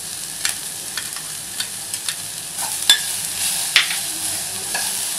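Chopped vegetables sizzling in oil in a pan while a steel ladle stirs them, scraping and knocking against the pan. The loudest knocks come about three and four seconds in.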